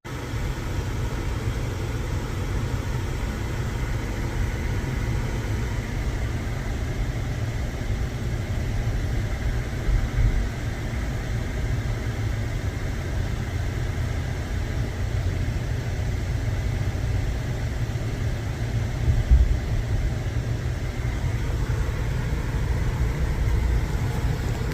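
Truck on the road: a steady low rumble of engine and road noise, with a couple of brief louder bumps about ten and nineteen seconds in.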